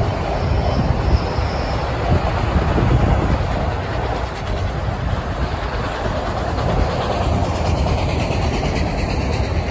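Empty autorack freight cars rolling past at close range: a steady rumble and clatter of steel wheels on the rails.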